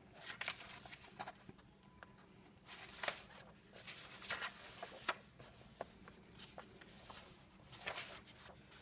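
Faint, scattered paper rustles and soft taps of coloring book pages being turned and handled.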